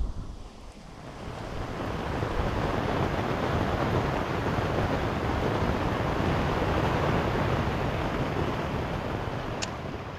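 A steady rush of wind and waves on open water, swelling in over the first couple of seconds and easing off near the end.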